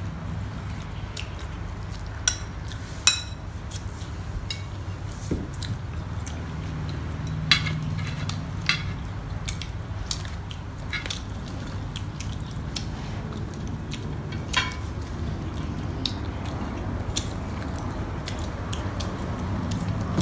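Forks and spoons clinking and clicking against plates and bowls, a dozen or so sharp separate clinks scattered through, over a steady low hum.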